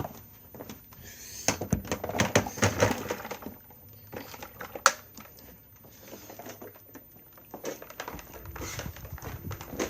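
Irregular plastic knocks, clicks and rattles of an upright carpet cleaner being moved and handled while switched off, with one sharp click about five seconds in.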